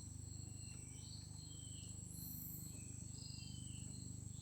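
Insects, crickets or cicadas, droning a steady thin high note, with short scattered chirps and a faint low hum underneath.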